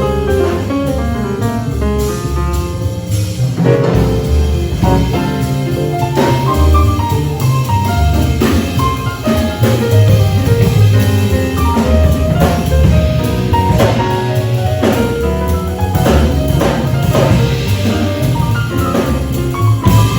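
Small jazz group playing, with drum kit, double bass and pitched instruments together; cymbal and drum strokes run through the passage.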